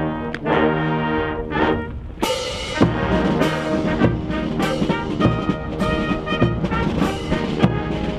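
Brass band music: held brass chords, then about two seconds in a livelier passage of short brass notes with drum hits.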